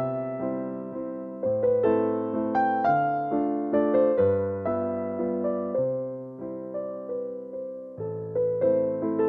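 Background music: an electric piano playing a gentle melody over held bass notes.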